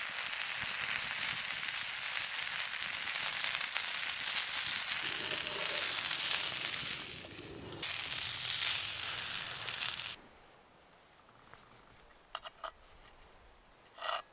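Bacon, sausages, black pudding, tomatoes and an egg sizzling in a cast iron skillet: a steady frying hiss that cuts off suddenly about ten seconds in. Then quiet, with a few light clicks near the end.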